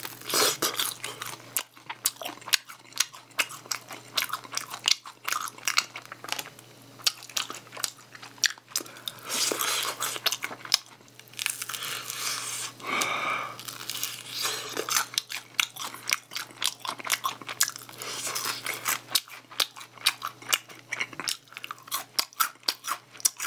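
Close-up eating sounds of spicy garlic-glazed fried chicken: repeated crunching bites into the crisp crust with wet chewing in between, irregular throughout. A faint steady low hum lies underneath.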